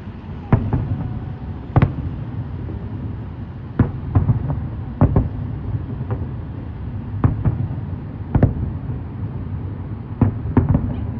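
Aerial fireworks bursting in a display: about a dozen sharp bangs at irregular intervals, some in quick pairs, over a steady low rumble.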